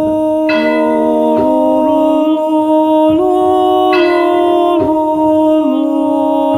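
Soundtrack music with singing: several held notes sound together as chords, moving to new pitches about every second.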